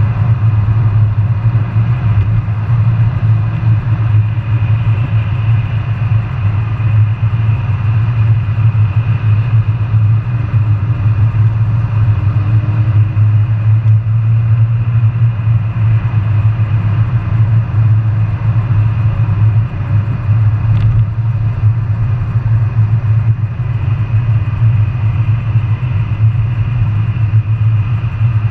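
Mazda RX-8's rotary engine and road noise heard from inside the cabin while cruising at steady highway speed, a steady low drone.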